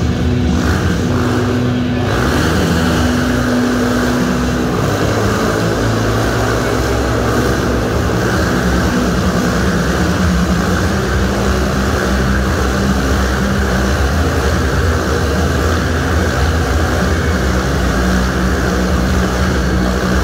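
Motorcycle engines running hard and steady inside a steel-mesh globe of death, the buzz growing louder about two seconds in and then holding.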